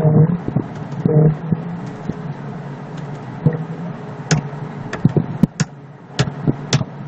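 Computer keyboard keys clicking as a web address is typed, a string of separate sharp clicks through the second half. Underneath is a steady low background hum, with two short low hums near the start.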